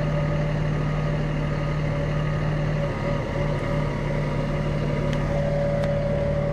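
The engine of the machine doing the lifting runs steadily, a constant hum with a fainter higher whine over it, as it moves the hoisted boat engine back. It dips briefly about halfway through.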